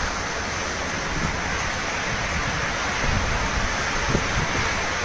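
Typhoon wind and heavy driving rain: a steady rush of noise, with gusts buffeting the microphone.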